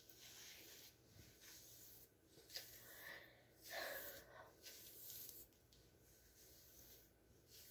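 Near silence: faint rustling of fingers running through and smoothing hair, with a slightly louder soft rustle about four seconds in.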